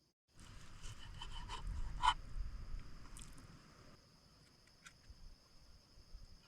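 Rubbing and scraping handling sounds with small clicks, loudest with a sharp click about two seconds in, then fading away. A steady high insect-like tone runs underneath.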